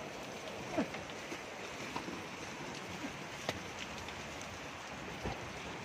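Heavy rain falling steadily, heard from under an umbrella, with a few sharp louder drops ticking now and then.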